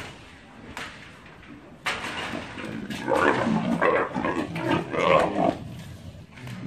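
Arabian leopard growling as it snatches a piece of raw meat through the cage bars, in a run of rough bursts that begin about two seconds in and are loudest in the middle.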